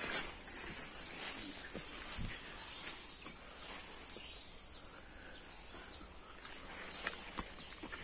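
Steady high-pitched chorus of forest insects, with a few faint crackles of footsteps on dry leaf litter.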